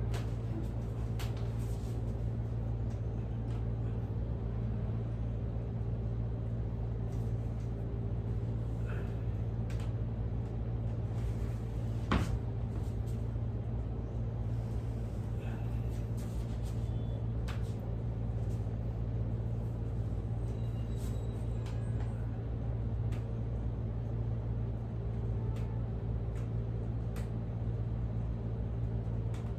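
Steady low machine-like hum, with scattered faint clicks over it and one sharper click about twelve seconds in.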